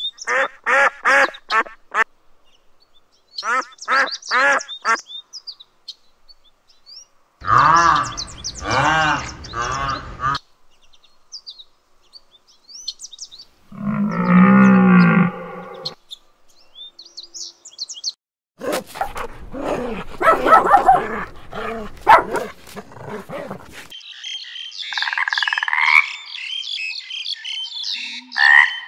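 A string of separate animal calls with short gaps between them: a run of repeated goose honks at the start, then longer pitched calls including a deeper one about halfway through, and a high chirping trill near the end.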